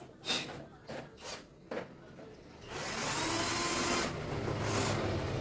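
Light clicks and knocks as parts of a photocopier's panels are handled. About halfway through a steady whirring noise sets in and keeps going.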